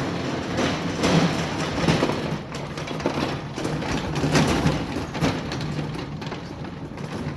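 Wheeled tool cart being rolled across a shop floor, its casters rumbling and the tools and cables on it rattling and clattering.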